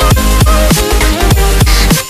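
Loud electronic dance music with a heavy bass and a deep drum beat about three times a second under a synth melody.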